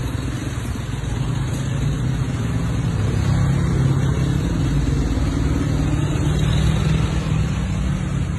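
A motor vehicle's engine running steadily: a continuous low rumble that grows a little louder about three seconds in.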